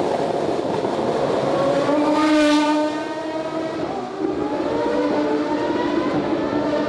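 Racing car engines running at high revs, one sweeping past about two and a half seconds in, followed by a steadier engine note.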